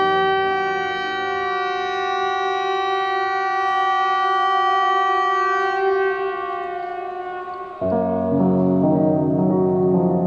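Swedish outdoor public warning siren ("Hesa Fredrik") giving the "Viktigt meddelande" (important message to the public) signal: one steady tone held for about seven seconds, then fading. About eight seconds in, lower droning music with gong-like notes starts suddenly.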